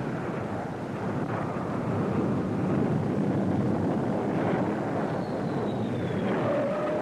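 Jet aircraft noise on an aircraft carrier's flight deck: a steady rush of engine noise mixed with wind, with a faint whistle falling in pitch about five seconds in.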